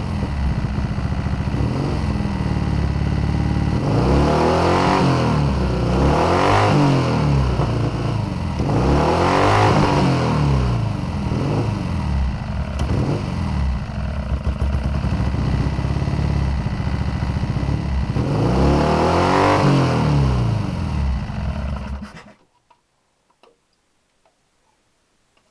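Triumph Bonneville T120's 650 cc parallel-twin engine running and being revved up and back down about four times, blipped to check the ignition timing with a strobe light. The engine is switched off near the end and stops abruptly, followed by a few faint clicks.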